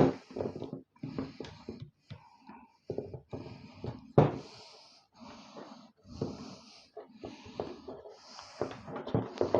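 Hand tools working a PC power supply apart: sharp clicks and knocks, with short hissing sounds repeating about once a second through the second half.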